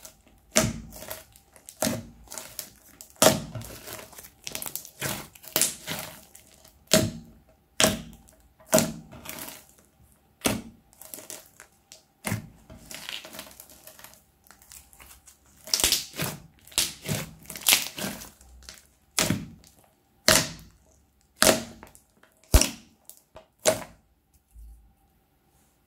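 Hands squishing, stretching and poking crunchy slime studded with small beads, making irregular sharp crackles and pops about once or twice a second. The popping stops about two seconds before the end.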